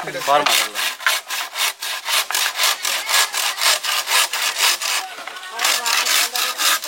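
Bamboo being sawn by hand in quick, even back-and-forth strokes, about four a second, with a short pause about five seconds in before the sawing resumes.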